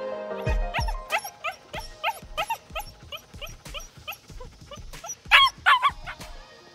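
German Shepherd puppy whining and yipping in a string of short, high, rising-and-falling whimpers, about two or three a second, loudest a little after five seconds in.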